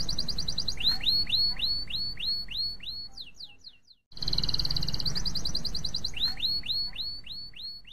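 Domestic canary singing: a fast, high trill followed by a run of down-slurred whistled notes, about three a second. The song breaks off briefly about four seconds in and the same phrase starts over, over a low background rumble.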